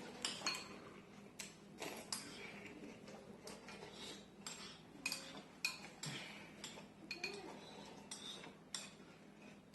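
Spoons clinking and tapping against cereal bowls in irregular strikes as cereal is eaten.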